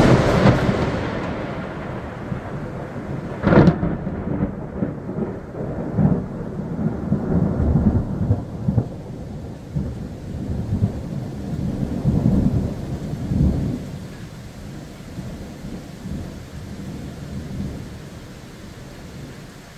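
Thunder from a nearby lightning strike: a sharp crack at the very start, a second crack about three and a half seconds in, then a long rolling, low rumble that slowly dies away.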